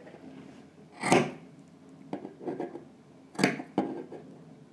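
Large metal fabric shears snipping through the seam allowance at the corner of two layers of sewn fabric. There are two crisp cuts about two seconds apart, with light clicks of the blades between them.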